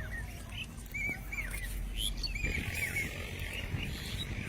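Birds chirping: many short, quick high calls repeating one after another over a steady low rumble.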